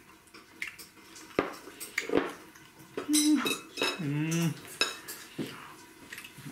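Chopsticks and a ceramic plate clinking and knocking as they are handled and set down, with sharp clicks at about one and a half and two seconds in. This is followed by two short wordless 'mmm' sounds of enjoyment while chewing, about three and four seconds in.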